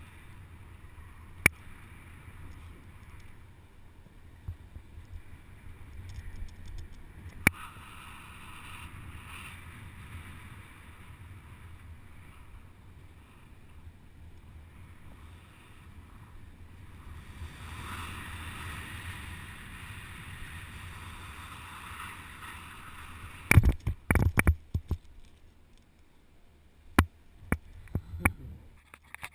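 Low, steady rumble of air rushing over a helmet camera's microphone during a base-jump descent, with a few sharp clicks and a cluster of loud crackling buffets about three-quarters of the way through.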